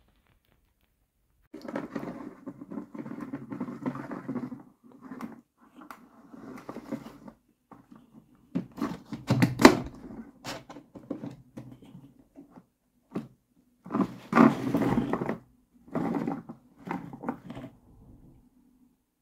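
Hands handling and turning hard plastic toys and a plastic toy carrying case in a cardboard sleeve: irregular rubbing, rustling and plastic knocks in bursts with short pauses. The loudest knocks come about nine and a half and fourteen and a half seconds in.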